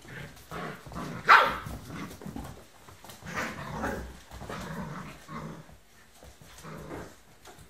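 Smooth collie puppies barking and growling as they play-fight: one sharp, loud bark about a second in, then a run of shorter, quieter barks and growls.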